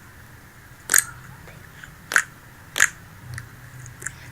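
Slime being squeezed and played with, giving short, sharp crackling pops: three loud ones about a second in, just past two seconds and near three seconds, and fainter ones near the end.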